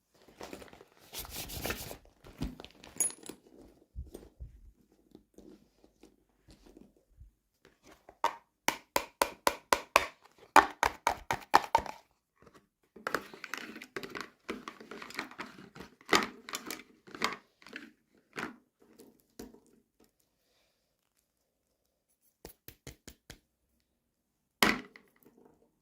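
Toy packaging being handled and opened: plastic crinkling and tearing, with many quick clicks and taps of small pieces, and one sharp knock near the end.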